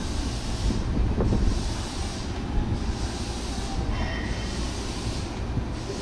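Electric commuter train rumbling at the station, with a brief faint high squeal about four seconds in.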